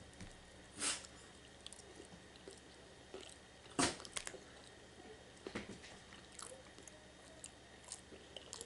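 Chewing and wet mouth sounds of someone eating saucy orange chicken and rice, with small clicks and scrapes of a plastic fork in a foam takeout tray. Two louder sharp clicks come about one and four seconds in.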